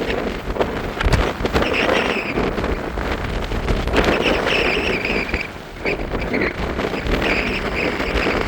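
Gusty wind buffeting the microphone with a heavy low rumble, and a high whine that swells and fades three times.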